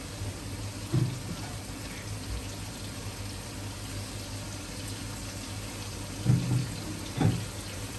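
Chicken kofta curry simmering in a large pot, a steady hiss, with three dull low thumps: one about a second in and two close together near the end.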